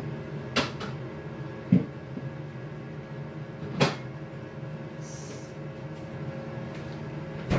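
Aicook air fryer oven running with a steady hum as it preheats, with four sharp knocks and clunks spread through, the loudest just before 2 seconds in.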